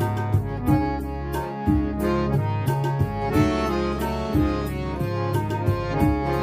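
Harmonium sound played from a keyboard: a melody in raag Charukeshi over a sustained low drone, with a steady rhythm of sharp percussive strikes underneath.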